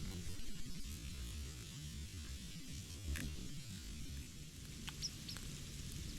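Steady low rumble and faint hiss, with a single click about three seconds in; near the end, two short high chirps from small birds.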